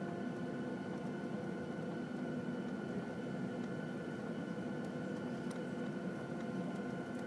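Steady cabin noise inside a taxiing Boeing 737-700: its CFM56 engines at low taxi power give a constant hum with several steady high whining tones.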